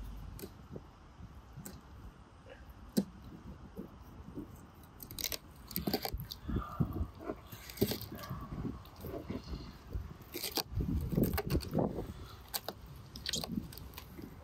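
Knife cutting raw catfish flesh away from the skin and bones on a wooden cutting board: a run of short, irregular cuts, scrapes and clicks, busiest in the second half.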